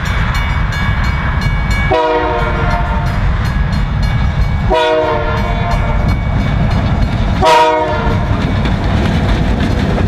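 EMD SW1500 diesel switcher passing close by with freight cars: a steady diesel rumble and wheels clicking over the rail joints. The locomotive's horn sounds three blasts, the first two about a second long and the last shorter and loudest.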